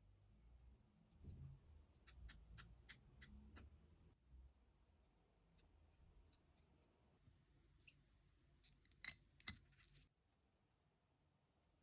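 Small sharp metallic clicks and taps of watch parts and tools being handled: a quick run of about six clicks, scattered single ticks, then two louder clicks near the end.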